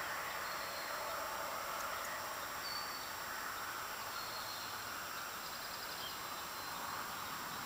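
Steady outdoor background hiss with a few faint, short high chirps scattered through it, one of them a quick run of ticks just past the middle.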